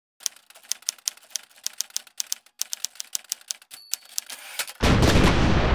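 Typewriter keystrokes, about twenty quick, irregular clacks, typing out on-screen title text, with a brief high ding just before four seconds. Near the end, a loud, steady rushing rumble cuts in suddenly.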